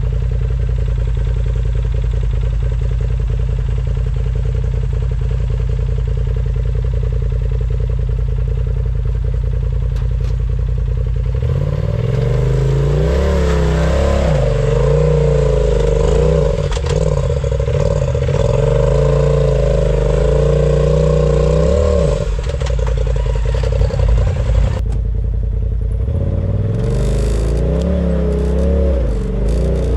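Off-road vehicle's engine idling steadily, then revving hard with its pitch wavering up and down as it works under load on the climb. It eases off with a few clattering knocks, then revs up again near the end.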